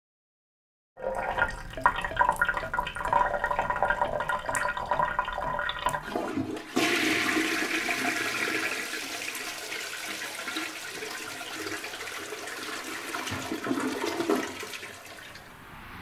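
A toilet flushing: a sudden rush of water about seven seconds in that slowly dies away over the next several seconds. Before it come a few seconds of rattling and squeaking.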